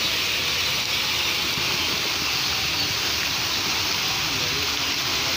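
Decorative fountain's ring of water jets spraying and falling into its pool: a steady, even rush of splashing water.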